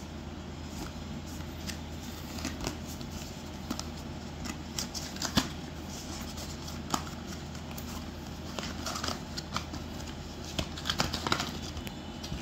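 Cardboard charger box being handled and opened: the end flap pulled open and the packed contents taken out, giving scattered crinkles and taps, the sharpest about halfway through and a cluster near the end. A steady low hum runs underneath.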